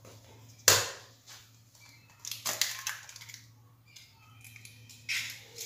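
An egg cracked once, sharply, on the edge of the mixing bowl about a second in, then softer crackling as the shell is broken open and the egg drops into the creamed butter and sugar.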